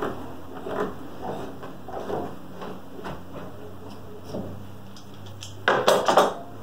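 Wooden pieces and metal bar clamps handled on a workbench: light knocks and rubbing, then a quick cluster of several louder clatters near the end as the clamps are taken up.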